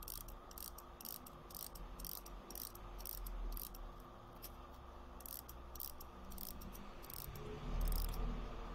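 Light, sharp metallic clicking from the movement of a Chinese mechanical wind-up alarm clock as it is handled and wound, roughly three clicks a second and somewhat irregular, over a low steady hum.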